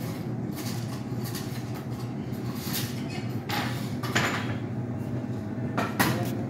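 A steady low hum of room noise, broken by a few brief noises about three and a half seconds in and again near the end.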